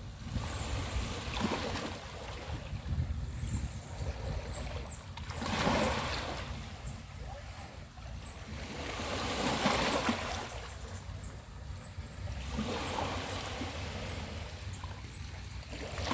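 Small sea waves washing onto a beach, surging every few seconds, over a steady low rumble of wind on the microphone. A high, short chirp repeats about twice a second from a few seconds in.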